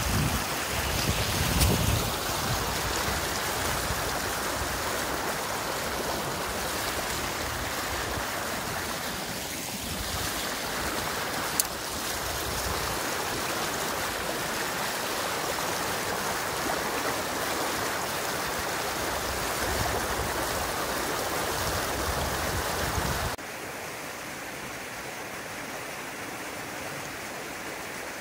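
Flowing water rushing steadily, with wind buffeting the microphone in the first couple of seconds. About 23 seconds in, it cuts abruptly to a quieter, softer water sound.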